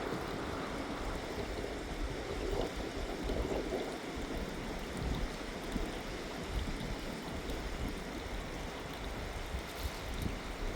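Steady rush of a fast-flowing mountain river, a continuous even noise with an uneven low rumble.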